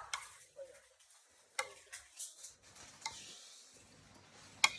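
A spoon scraping and tapping against dishes in short, scattered strokes while chutney is spooned onto the chaat, with one sharp click near the end.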